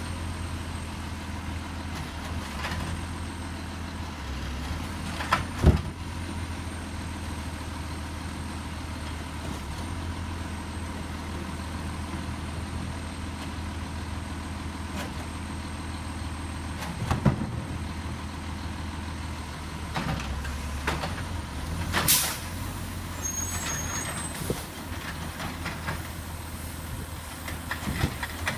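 Peterbilt 320 garbage truck's diesel engine idling steadily while the Heil Durapack 7000 automated side-loader arm grabs and dumps carts. Several clanks of carts against the arm and hopper stand out, and a short sharp air hiss comes about two-thirds of the way through.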